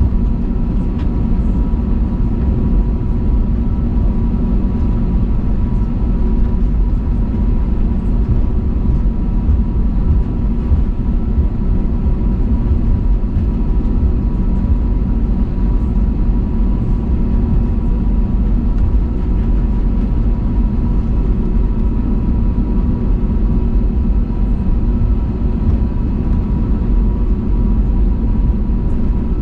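Steady cabin noise inside an Airbus A320neo: a dense low rumble of engines and airflow with a steady whine from its Pratt & Whitney geared turbofan engines.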